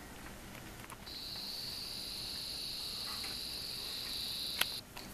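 An insect singing one steady high-pitched note, starting about a second in and cutting off suddenly near the end, with a single sharp click just before it stops.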